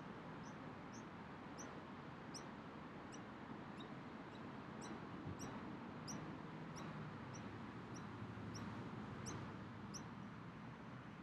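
A bird chirping over and over: short, high, rising chirps about twice a second, evenly spaced, over a faint outdoor hiss.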